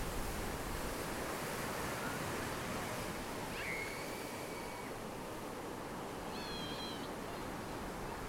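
Small surf breaking over lava rocks and washing up the shore: a steady, even rush. A faint bird whistles twice, once about three and a half seconds in and again near the end.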